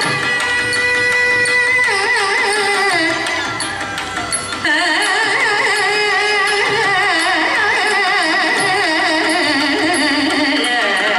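Carnatic classical music accompanying a Kuchipudi dance: a sustained melody line with wavering, ornamented pitch, dipping briefly about four seconds in before carrying on.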